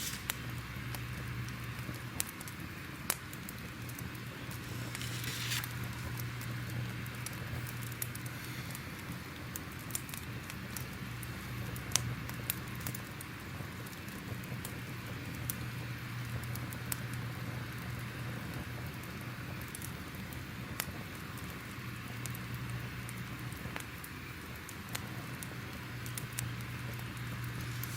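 Crackling fire ambience: a steady hiss with scattered sharp pops and crackles, over a low steady hum.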